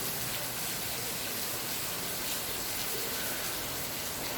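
Steady rainfall: an even, unbroken hiss of falling water.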